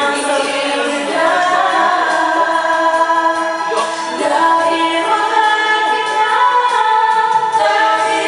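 A song with several voices singing together over music.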